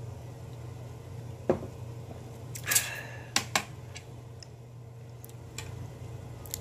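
Tableware being handled: a soft knock, then a drinking glass set down on the table with a bright clink that rings briefly, followed by two sharp clicks and a few faint ticks. A steady low hum runs underneath.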